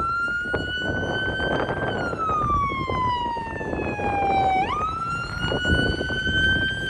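Police siren on the sheriff's patrol vehicle leading the parade, wailing. Its pitch jumps up, climbs a little, then slides slowly down, and jumps up again about two thirds of the way through. Vehicle engine noise runs underneath.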